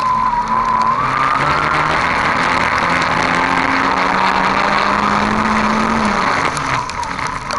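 Race car engine heard from on board, pulling hard at high revs over continuous tyre and dirt noise. The revs drop and the sound dips briefly near the end.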